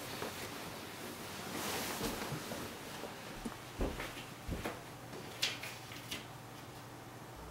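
Bedding rustling as someone gets up, then a couple of soft thumps, and a few sharp papery ticks as a sticky note is handled and pulled off a door.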